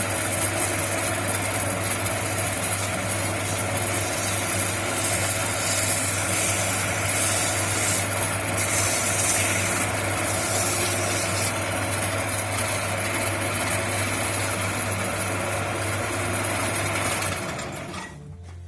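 Homemade wood copying lathe running steadily, its electric motor giving a strong low hum under a loud rushing noise, then switched off and dying away near the end.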